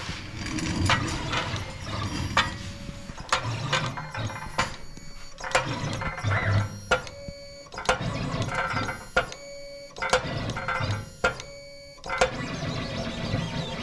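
CNC plasma table gantry running a scribing job: its stepper motors whine in changing pitches as the head moves in short starts and stops, with sharp clicks throughout. A spring-loaded diamond-tip scriber drags across thin aluminum sheet.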